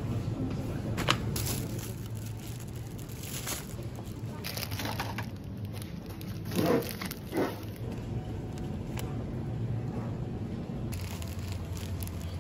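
Plastic food packaging crinkling and rustling as bagged rice and sliced bread are handled, over a steady low background hum. There are two short, louder sounds just past the middle.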